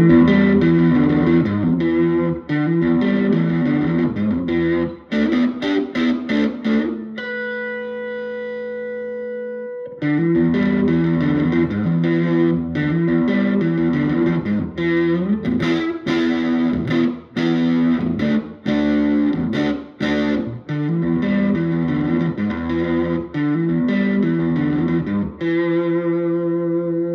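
Electric guitar played through a 1958 Gibson GA-20 tube amp, with gritty, overdriven chords strummed in a rhythmic riff. About seven seconds in one chord is held for a few seconds, and near the end a last chord is left ringing.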